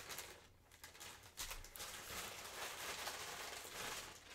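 Clear plastic bags rustling and crinkling as the yarn skeins wrapped in them are handled and set down on a table, an irregular crackle with a short lull near the start.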